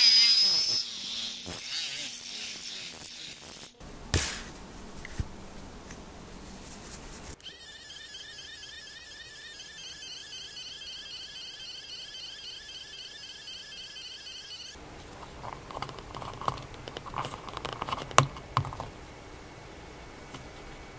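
A mini rotary tool winds down at the start, its whine falling away within two seconds. Later a 3D pen's filament-feed motor runs for about seven seconds with a steady, wavering whine while it extrudes plastic. Light clicks and taps of handling the small plastic part follow near the end.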